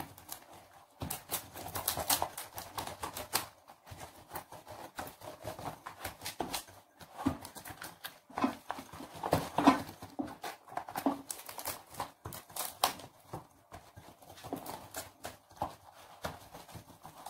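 Irregular taps, knocks and rustles of a drinking glass being pressed and rolled over banana leaves to flatten a sheet of hot peanut-caramel candy beneath them.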